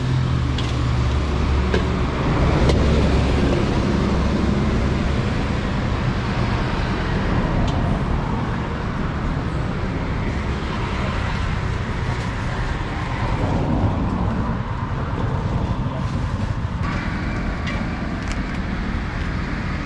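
Busy street ambience: steady road traffic noise with a low engine rumble strongest in the first few seconds, and people's voices in the background.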